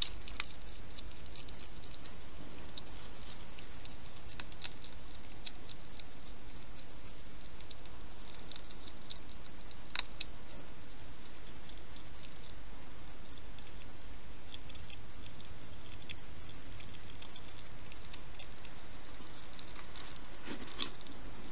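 Wild hedgehog feeding at a bowl: a scatter of small, sharp clicks of its eating, over a steady background hiss, with one louder click about ten seconds in.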